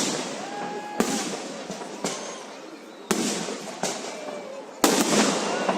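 Display fireworks shells bursting: a series of sharp bangs roughly once a second, each followed by crackling. The heaviest burst comes near the end.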